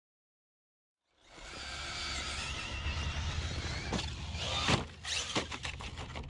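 Silence for about the first second, then a 6S brushless electric RC rally car runs with a wavering motor whine over tyre and gravel noise. About four seconds in, sharp thumps come as the car crashes and tumbles, the loudest near the fifth second, followed by a quick run of clattering knocks.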